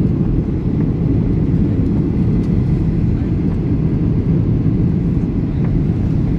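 Steady low cabin rumble inside a Boeing 737-800 on descent: jet engine and airflow noise heard through the fuselage, without rises or breaks.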